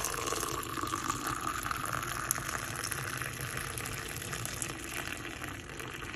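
A thin stream of hot milk poured from a height into a mug of coffee powder, splashing and frothing steadily as it fills. The sound softens slightly as the foam builds up.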